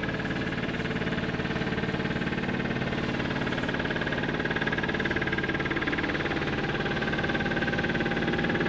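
Engine of a classic motor boat passing close by, running steadily and growing slowly louder as it nears.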